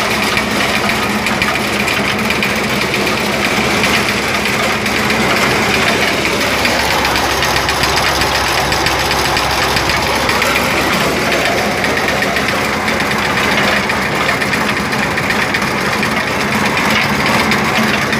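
Engine-driven corn sheller running steadily while it shells corn, with a continuous loud machine noise and shelled kernels pouring out of the chute.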